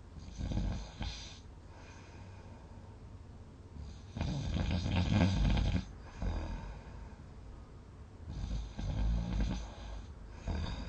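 A person snoring loudly in deep sleep: four breath-long snores, the longest and loudest about four to six seconds in, over a steady low background hum.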